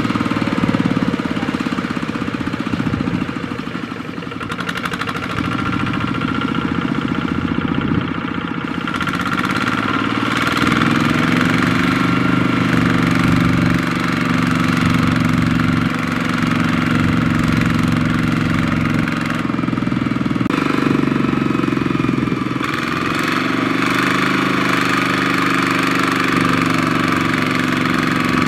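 Single-cylinder diesel engine of a two-wheel walking tractor running hard under load, pulling a loaded trailer through deep mud, with a knocking diesel clatter. Its pitch rises about a third of the way in, then dips and climbs back about two-thirds of the way in.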